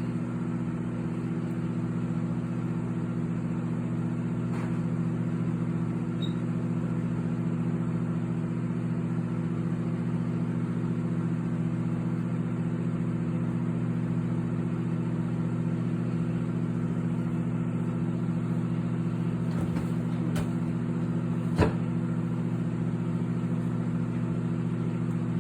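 Microwave oven running with Mentos inside: a steady, even hum, with one sharp click about three-quarters of the way through.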